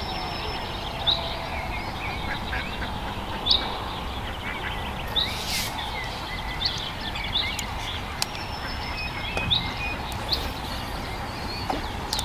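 Songbirds singing and calling: many short, sharp high chirps and quick rising notes scattered throughout, over a steady outdoor hiss. A brief rustling noise comes about five seconds in.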